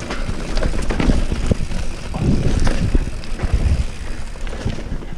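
Vitus Sentier hardtail mountain bike on Maxxis Ardent tubeless tyres riding a rough dirt trail: a steady low rumble of tyres over dirt and roots, with scattered knocks and rattles from the bike.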